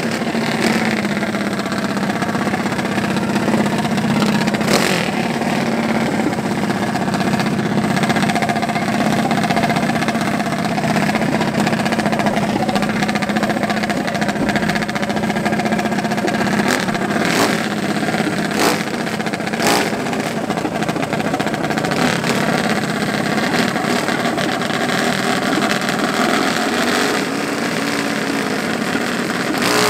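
Racing mini bike engines running at the start line, a steady idle with a few short blips of the throttle.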